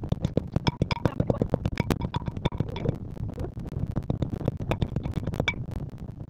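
Pestle pounding and mashing chopped olives in a heavy mortar: a fast, irregular run of knocks and thuds, several a second.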